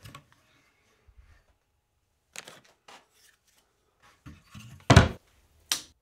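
Thin wooden strips being handled, with scattered light clicks and knocks, then one loud thump about five seconds in and a sharper knock shortly after.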